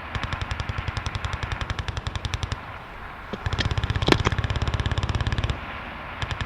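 Automatic gunfire in rapid bursts of about a dozen shots a second. A burst of about two and a half seconds is followed by a short pause, then a second burst of about two seconds with one sharper crack near its middle, and a third burst starting near the end.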